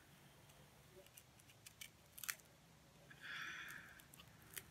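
Faint small clicks and a brief scraping rustle a little past three seconds in as a small knife picks and cuts at the tight plastic wrapping on a candle.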